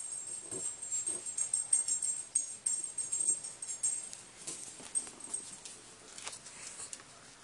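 Light metallic jingling with quick rustling and scuffing as a small Havanese dog digs and noses under a bedspread. The activity is busiest in the first half and dies down over the last few seconds.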